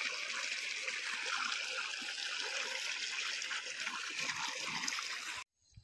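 Irrigation water gushing from a pipe outlet into a flooded seed bed: a steady splashing rush of water that cuts off suddenly near the end.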